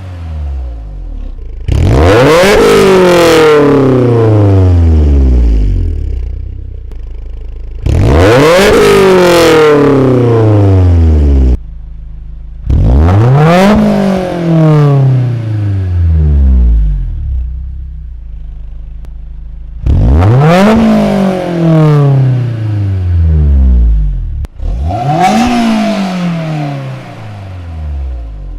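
Honda S2000 four-cylinder engine free-revving through its exhaust, blipped five times. Each rev climbs quickly to a high pitch and falls slowly back to a steady idle between the revs.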